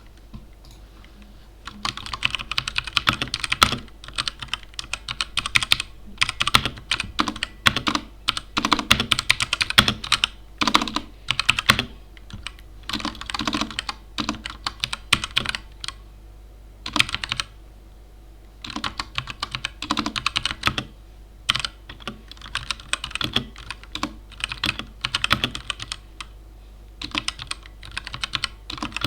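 Typing on a mechanical keyboard with Gateron Brown tactile switches: quick runs of key presses and bottom-outs in bursts of a few seconds, with short pauses between them.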